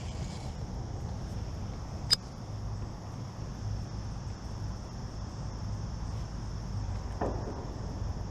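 Crickets trilling in a steady chorus over a low, steady rumble, with one sharp click about two seconds in.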